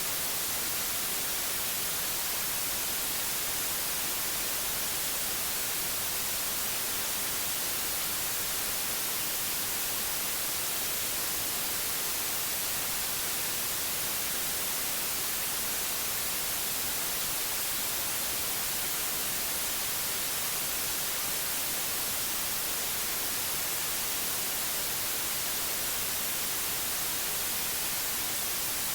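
Steady white noise: an even, unchanging hiss that is strongest in the high frequencies.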